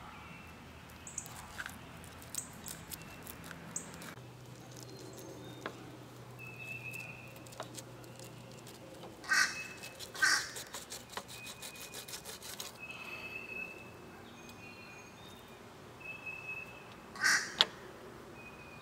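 Crow cawing: two harsh caws about nine seconds in and another near the end. Between them a fillet knife makes faint clicks and scrapes on a cutting board while fish are cleaned.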